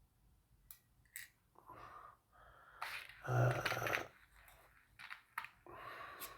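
A man's breathing and a brief voiced hum or mumble about three seconds in, with a few light clicks scattered through.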